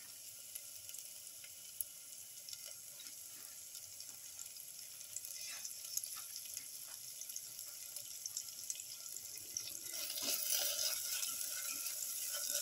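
Butter melting and sizzling in a hot steel pan with sautéed onions: a steady hiss with small crackles that grows louder about ten seconds in.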